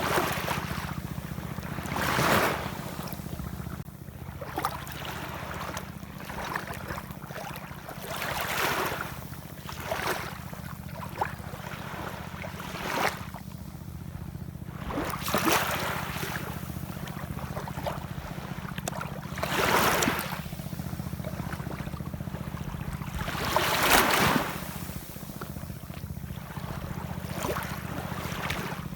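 Ocean waves washing in, swelling and falling away about five times, over a steady low rumble.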